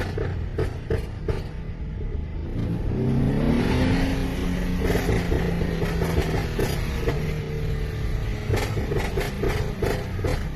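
Tuned Mercedes-Benz E400's twin-turbo V6 exhaust crackling and popping, then accelerating with an engine note that rises about three seconds in and then holds steady. A fresh run of crackles and pops comes near the end.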